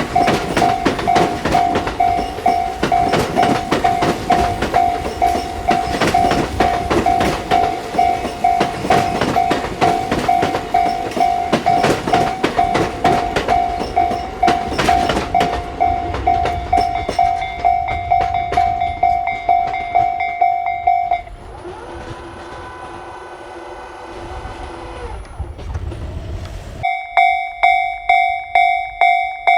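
Electronic railway level-crossing warning bell ringing a steady "kan-kan" at about two beats a second, while a train passes with a rapid clickety-clack of wheels over rail joints through the first half. The bell stops abruptly about two-thirds through, leaving a quieter humming stretch, then starts again near the end.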